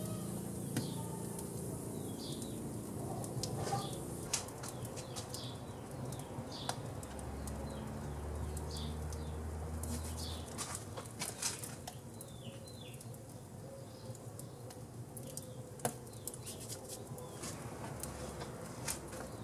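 Wood fire burning with irregular sharp crackles and pops, and small birds chirping in the background.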